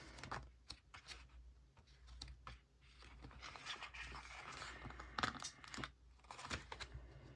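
Faint rustling and crinkling of paper sticker sheets, with scattered small clicks and tears as stickers are peeled off their backing and handled.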